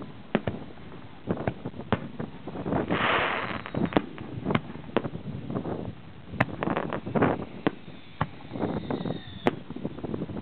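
Fireworks display: aerial shells bursting with many sharp bangs and crackles. There is a short hiss about three seconds in and a falling whistle near the end.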